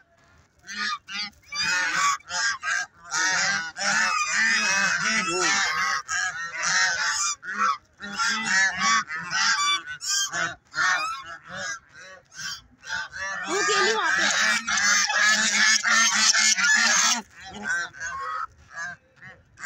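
A flock of white domestic geese honking all at once, many calls overlapping, as they crowd for snacks held out to them. Two long loud stretches of calling, with a patchier lull between them.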